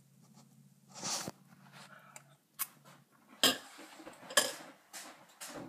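Clinks and knocks of a cereal bowl and spoon being handled at a table, a few scattered sharp knocks with the two loudest about three and a half and four and a half seconds in.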